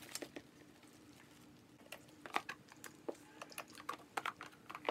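Faint, scattered clicks and taps of a utensil against a plastic mixing bowl as thick lip gloss is stirred, with plastic containers being handled; the taps cluster in the second half.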